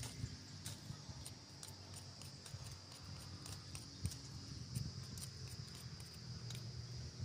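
Insects droning on one steady high pitch, with scattered short clicks and scrapes of a knife working a thin stick.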